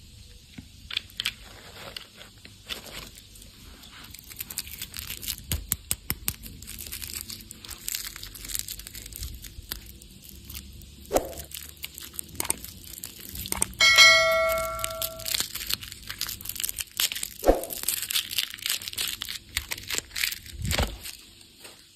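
Plastic candy wrappers and packaging being torn open and crinkled, with many small clicks and taps. About two-thirds of the way through, a single bell-like ding rings out for about a second and a half.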